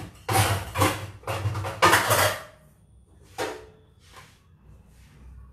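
Kitchen items being handled and set down while a counter is tidied: a quick run of knocks and clatters over the first two and a half seconds, then one more knock and a fainter one.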